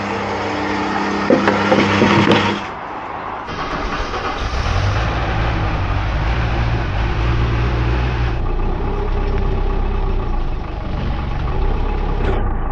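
A steady machine hum that cuts off about two and a half seconds in, then a diesel vehicle engine starts about a second later and keeps running steadily.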